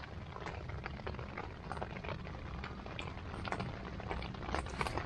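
Rain pattering on an Ozark Trail tent, heard from inside: many light, irregular ticks of drops over a low rumble.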